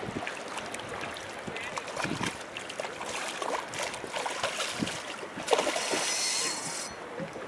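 A hooked bonnethead shark thrashing at the water's surface, splashing and churning the water. About five and a half seconds in comes a louder splash lasting about a second.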